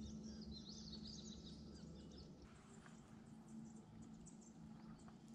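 Faint bird chirps and calls over a quiet background. A low steady hum runs underneath for the first half and stops about halfway through.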